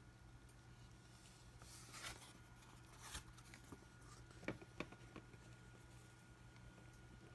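Quiet handling of paper and a cardboard model-kit box: a soft paper rustle about two seconds in and a shorter one about a second later, then two light cardboard taps a little past halfway, with a few faint ticks after them.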